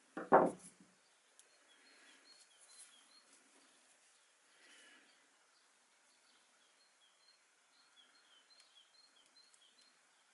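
Faint bird chirps, short high notes repeated many times, with one dull thump just after the start.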